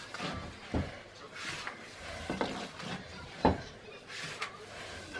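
Wooden rolling pin working dough on a wooden board: a low rubbing with scattered sharp wooden knocks, the loudest about three and a half seconds in.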